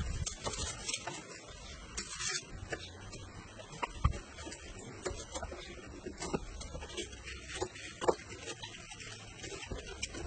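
Kitchen knife peeling and slicing red onions on a wooden chopping board: irregular light knocks of the blade on the board with soft cutting and scraping between them.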